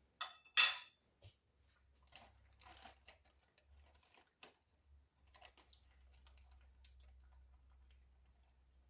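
Light rustling and crunching of chicken being pressed and turned in breadcrumbs by hand, with two brief louder rustles about a quarter and three quarters of a second in, then fainter scattered crunches and clicks that fade out about halfway through.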